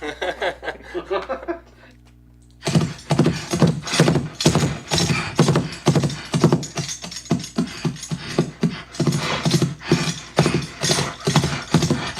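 Playback of Foley horse sounds: hoof props clattering in a fast galloping rhythm, with a jingling bridle and vocal horse snorts, starting a couple of seconds in after a short voice.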